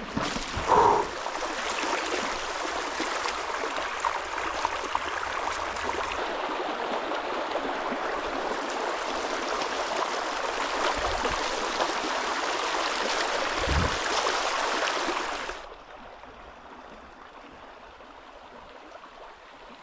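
Shallow stream water splashing and rushing steadily as someone wades through it close to the microphone. About fifteen seconds in it cuts off suddenly, leaving only faint outdoor background.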